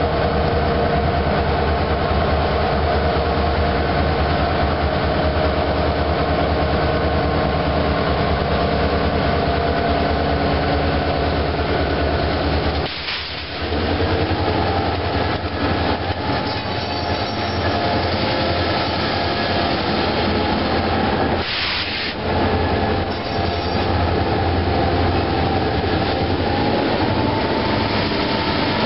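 Freight train's diesel locomotives passing close by under power: a loud, steady engine drone that dips briefly twice as one locomotive gives way to the next, with the rumble of wheels on the rails underneath.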